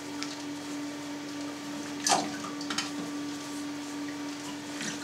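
Wet cheesecloth being folded and tucked over cheese curds in a plastic mould: a few short swishes and wet rustles, the sharpest about two seconds in, over a steady low hum.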